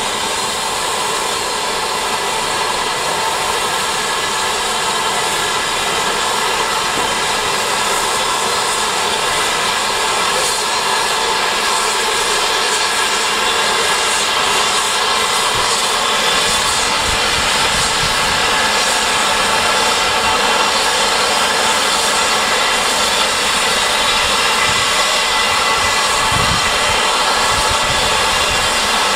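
Steam locomotive blowing off steam: a loud, steady hiss with several steady whistling tones in it.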